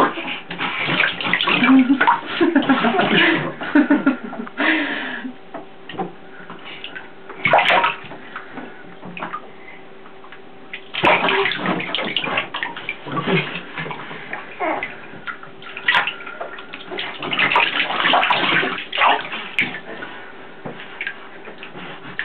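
Bathwater splashing and sloshing in a bathtub in irregular bursts as a baby kicks in the water, with quieter stretches in between.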